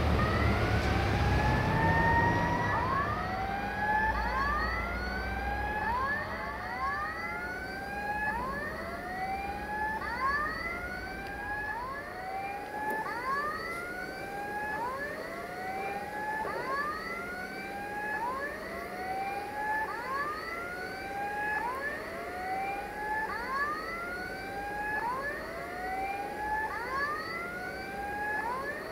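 An electronic siren-like warning signal sounding continuously. It is a rising wail that repeats about every second and a quarter, with two overlapping tones. A low engine rumble fades out in the first few seconds.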